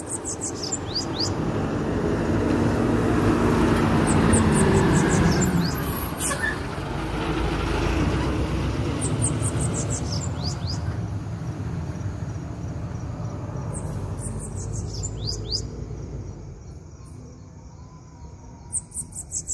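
A caged bananaquit singing about five short runs of high, thin notes in quick succession, over a loud rushing noise that swells over the first half and then fades.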